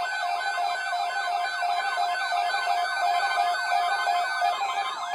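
Emergency Alert System attention tone: electronic beeps pulsing about four times a second, layered with rapid siren-like sweeping tones, signalling a severe thunderstorm watch alert.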